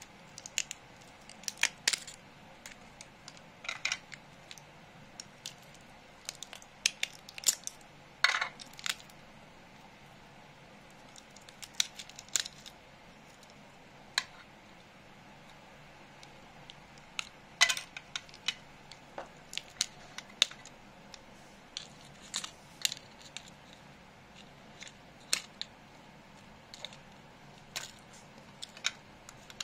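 Combination pliers gripping, cracking and snapping components and hardened glue off a laptop charger's circuit board: irregular sharp clicks and cracks, with a couple of short scrapes.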